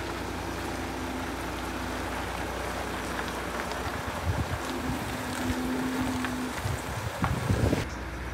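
Diesel engine of a box truck running as the truck reverses slowly, a steady low rumble with a faint steady hum. Uneven low thuds come and go in the second half, the loudest about 7 seconds in.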